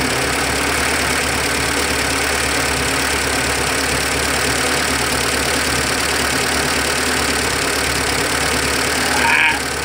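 Mitsubishi Colt T120SS carburetted engine idling steadily, heard up close in the engine bay.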